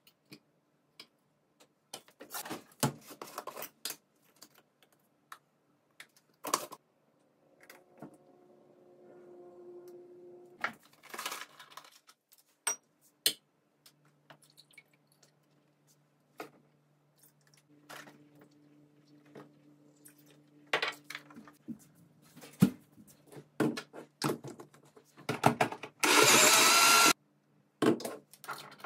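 Scattered knocks and clinks of kitchen containers being handled. Then, near the end, a countertop jug blender runs for about two seconds, blending frozen berries into a smoothie; this is the loudest sound.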